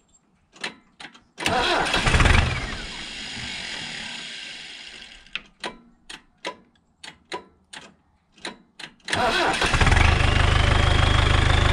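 Hydrema 912 dump truck's starter circuit on a start attempt: a few sharp solenoid clicks, a brief turn that dies away, then a run of repeated clicks before the engine turns over steadily for about three seconds with a rising whine. The clicking persists even with the corroded starter wires replaced, which the owner now blames on the key switch.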